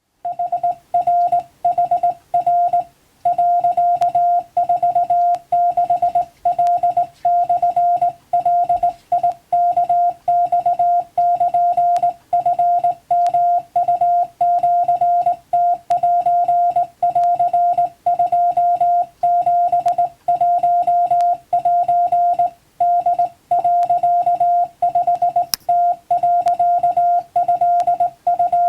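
Morse code tone: a single steady beep keyed on and off in rapid dots and dashes, with short pauses between groups, sending Japanese wabun telegram text for receiving practice.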